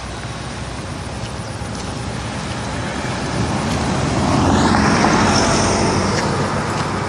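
A road vehicle passing by, its engine and tyre noise swelling to a peak about four to five seconds in and fading away.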